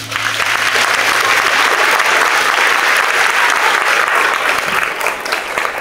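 Audience applauding after a song, steady and loud, beginning to fade near the end.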